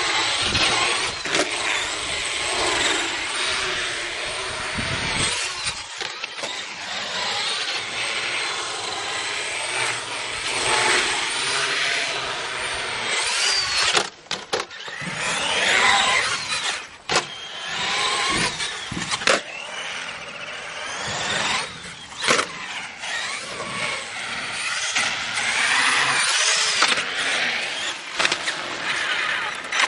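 Traxxas Summit RC truck's electric motor and gearbox whining, the pitch rising and falling again and again with the throttle, over the rumble of its tyres on concrete. A few sharp knocks come as the truck tumbles, jumps and lands, the clearest about halfway through.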